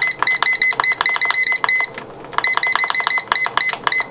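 Cuisinart electric pressure cooker's control panel beeping once for each button press as the cooking time is stepped up, a quick run of short high beeps about five a second. The beeps pause briefly about two seconds in, then carry on.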